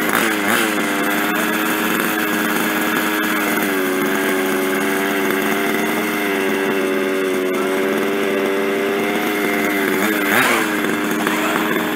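Small two-stroke engine of a petrol RC car running steadily. Its pitch rises and falls in a short blip near the end.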